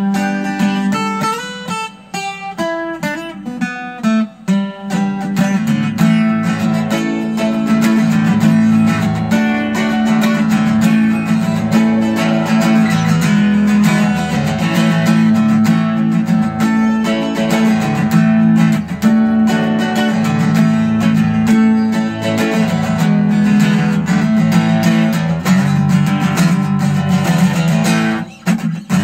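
Acoustic guitar played solo, with no voice. A run of separate picked notes gives way, about five seconds in, to full, steady chord strumming with a strong bass note underneath.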